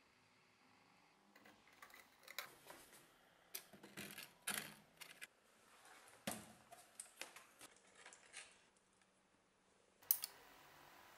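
Scattered light clicks, taps and rattles of hands setting up an electrolysis rust-removal bath: a cleaver and a rebar rod in a plastic bottle of salt water, wires, and a metal power-supply box handled on the bench. Near the end, a sharp click and then a steady faint hiss.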